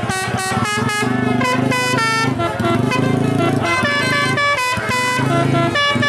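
Telolet bus air horns (Basuri multi-tone horns) playing quick stepping melodies over a lower sustained horn chord, several horns sounding at once.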